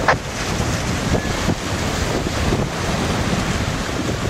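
Steady wind noise buffeting the microphone, an even rushing hiss.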